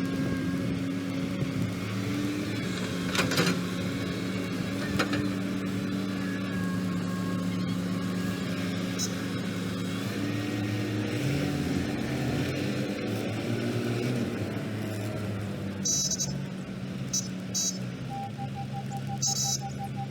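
Heavy diesel engines of an excavator and dump truck running under varying load, the engine note shifting in pitch as it works. Two sharp bangs come about 3 and 5 seconds in, and a rapid beeping tone starts near the end.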